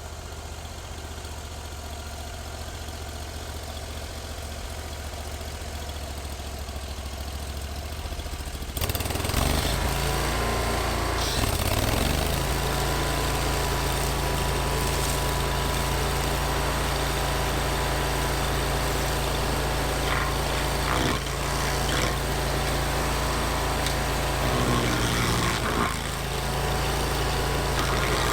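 Vermeer SC362 stump grinder's engine running steadily. About nine seconds in it gets much louder and stays loud, with a coarse noise on top of the engine note.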